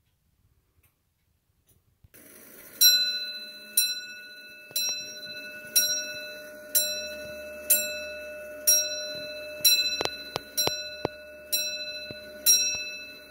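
Antique longcase (grandfather) clock striking twelve on its bell, one ringing blow about every second, each dying away before the next. The striking train sets off about two seconds in, just before the first blow.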